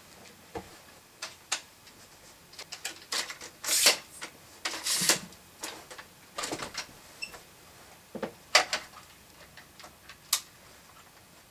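Handling noise of a camcorder and tripod being set up: irregular clicks and knocks with short scraping rustles, two louder scrapes about four and five seconds in and a sharp click about eight and a half seconds in.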